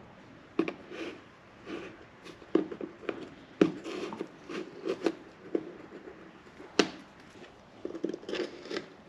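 A metal hand tool scraping and picking at tough old residue in a boat's bow-cleat mounting hole, with irregular scrapes and sharp clicks from about every half second to every second or so.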